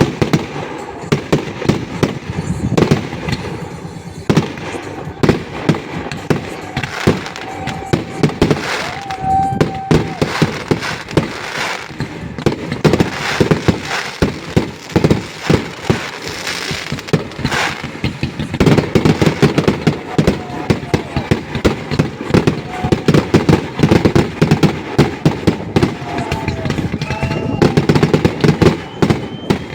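Fireworks salute going off: a dense, irregular run of bangs and crackling bursts, thickening into rapid volleys in the second half, with a few whistling tones, one rising near the end.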